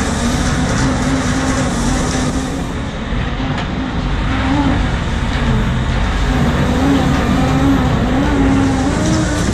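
Shrimp trawler's engine and hydraulic deck machinery running steadily while the trawl net is hauled aboard, a loud continuous drone whose pitch wavers slightly up and down.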